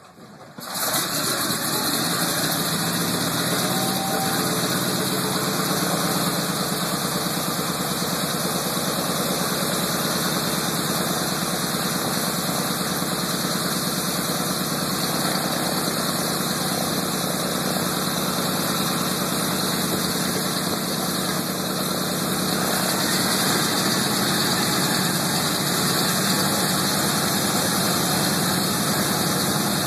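B-17 Flying Fortress's Wright Cyclone nine-cylinder radial engines running at idle, the sound coming up sharply about a second in and then holding steady, with a slight rise about three-quarters of the way through.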